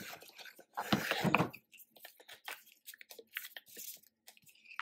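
Paper and cardboard being handled: a hard cardboard album box and its paper inserts and cards. There is a brief rustling scrape about a second in, then light taps and rustles of cards.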